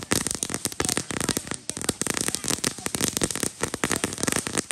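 Ground fountain firework burning with a dense, rapid crackling of many small pops.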